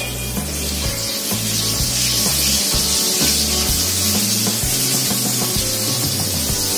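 Background music with a stepping bass line, over a steady high hiss.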